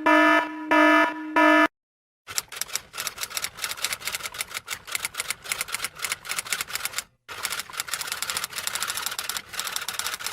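An electronic buzzer tone beeping about three times, then, after a short pause, a long run of fast, irregular typing clicks, like keys struck in quick bursts, with one brief break partway through.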